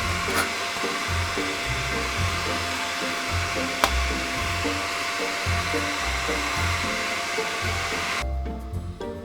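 Steady rushing air noise from a blower running under background music with a rhythmic bass line; the blowing stops abruptly near the end.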